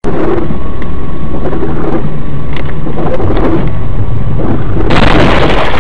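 Loud, distorted rumble of wind and road noise on a vehicle dashcam's microphone, with a harsher rush of noise about five seconds in that lasts under a second.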